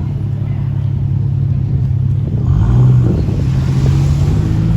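A 2021 Land Rover Defender 90's engine and exhaust running steadily, then getting louder about halfway through as it accelerates. The exhaust note sounds not stock.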